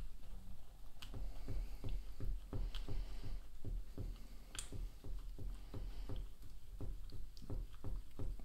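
Thick two-part RTV silicone rubber being stirred with a wooden stick in a plastic cup: soft, wet squishing and scraping strokes, about three a second, as the base and catalyst are mixed thoroughly and the sides scraped down.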